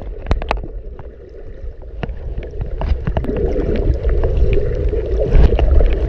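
Muffled underwater water movement picked up through a GoPro's waterproof case: a heavy low rumble with scattered sharp clicks and knocks, growing louder in the second half.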